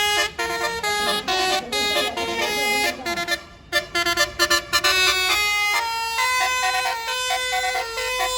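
Bus "telolet Basuri" musical horn playing a quick melody of short, high, multi-tone notes, with a brief pause about three seconds in before the tune carries on.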